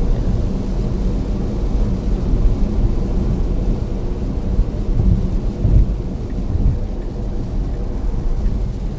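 Steady low road and rain noise inside a Tesla Model S Plaid's cabin at highway speed in a heavy downpour: tyre spray and rain on the car. A few louder low rumbles come about five to six seconds in.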